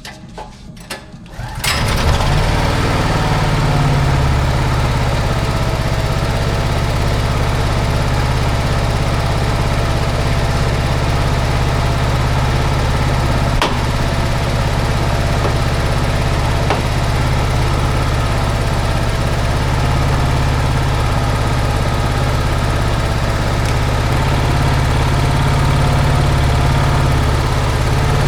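Honda EB5000X generator's single-cylinder Honda GX390 engine starts about two seconds in, then runs steadily.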